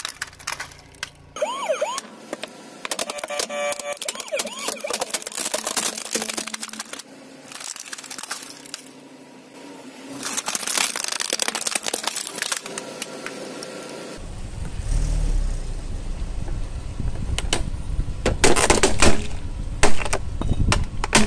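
Hollow plastic toy cars cracking and snapping under a car tyre, with a toy's electronic siren wailing briefly early on. A low rumble comes in about two-thirds through, and the loudest cracks come near the end as the red toy's body splits.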